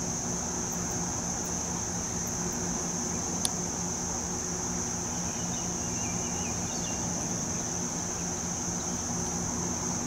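Steady, high-pitched shrilling of night insects over a low, steady hum, with one sharp click about three and a half seconds in.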